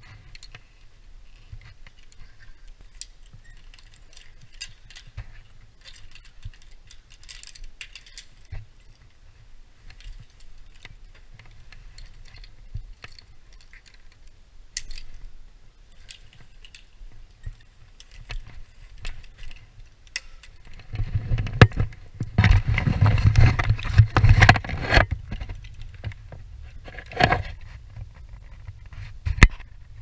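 Metal climbing hardware on a rope access harness (carabiners, descender and rigging) clinking and jangling as the worker moves on the rope. A louder stretch of rattling and handling noise comes in the last third.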